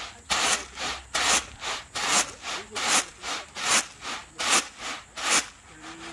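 Mung beans rasping and swishing against a woven bamboo winnowing basket as it is tossed in a steady rhythm: a strong swish about every 0.8 s with a softer one between. The tossing stops near the end.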